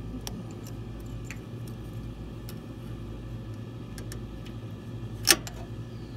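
Small metallic clicks of pliers working the choke linkage on a riding mower's carburetor, over a steady low hum. About five seconds in comes one sharp metallic snap, the spring-loaded choke lever slipping out of place.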